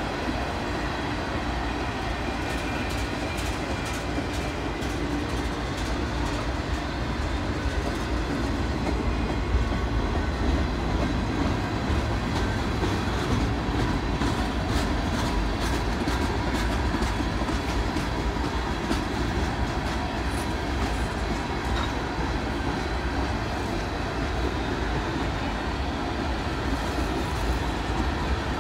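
Freight train cars, tank cars and boxcars, rolling over a stone railroad viaduct: a steady rumble of steel wheels on rail, with faint clicks through the middle.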